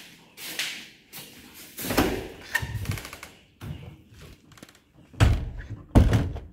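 A door being opened and banged shut, then footsteps on concrete with a couple of heavy thuds near the end.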